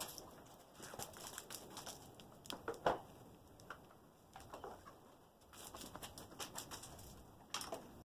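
Faint, scattered knocks, clicks and shuffling from someone handling parts on a motorcycle.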